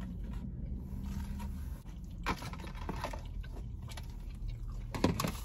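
Pizza being eaten in a car: a few faint crunches and clicks of biting and chewing over a steady low cabin hum.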